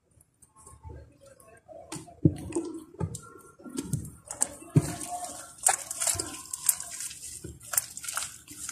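Homemade glue slime being mixed with pink colouring: irregular wet squelches and sticky pops, sparse for the first couple of seconds and then coming thick and fast.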